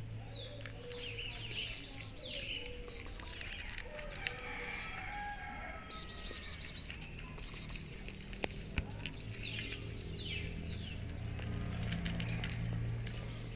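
Small birds chirping: series of quick high calls that sweep downward, clustered at the start and again about ten seconds in.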